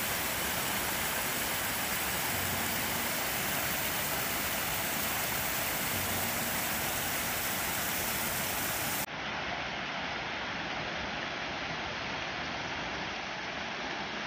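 Steady rush of flowing water from a mountain stream. About nine seconds in it changes abruptly to a duller, slightly quieter rush.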